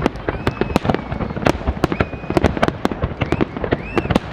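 Fireworks display going off densely: rapid, irregular bangs and crackles, several a second, with short whistling tones that rise and fall over them.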